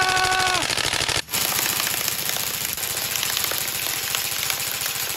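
Electric M4-style airsoft rifle firing on full auto, a fast, even rattle of shots that stops briefly about a second in and then runs on. A man's shout trails off at the start.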